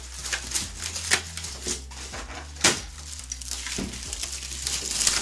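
Clear plastic bag crinkling and rustling as a monitor stand is handled and pulled from it, with scattered clicks and knocks of plastic parts and packaging; one sharp knock about two and a half seconds in.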